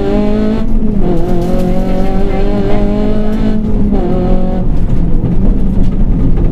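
Rally car engine accelerating hard, heard from inside the cabin. Its pitch climbs, dips briefly just under a second in, climbs again, breaks off near four seconds in and then picks up again more roughly.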